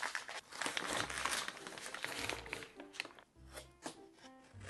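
Plastic and paper takeout packaging crinkling and rustling as containers are handled. Background music comes in about three seconds in.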